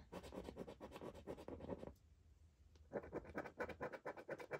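Scratching the coating off a scratchcard: rapid rubbing strokes in two bouts, with a pause of about a second near the middle.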